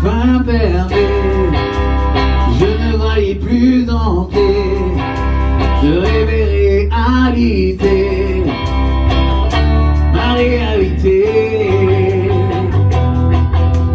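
Music: a song with a sung melody over guitar and a steady bass line.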